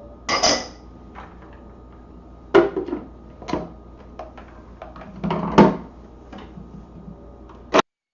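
Kitchen handling sounds: about six separate knocks and clinks of utensils and a blender jar as the cocktail ingredients go in, the loudest a little past halfway. The sound cuts off abruptly shortly before the end.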